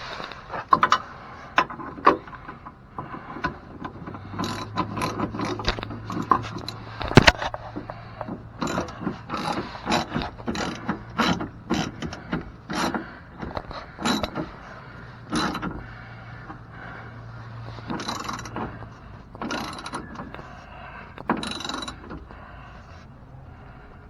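Hand ratchet wrench clicking in quick repeated strokes as bolts on a step-rail mounting bracket are run in and snugged.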